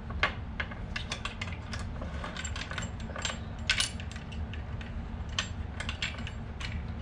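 Irregular small metallic clicks and clinks of mounting bolts and hardware being handled and threaded in by hand, over a steady low hum.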